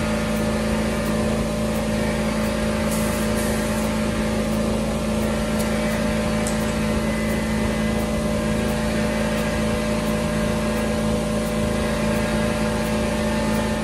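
Air compressor running steadily for the paint spray gun: a constant motor hum over a hiss, with no change in pitch or level.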